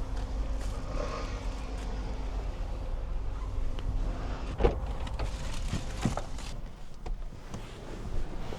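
Car driving, heard from inside the cabin: a steady low road-and-engine rumble, with a few sharp clicks or knocks about halfway through.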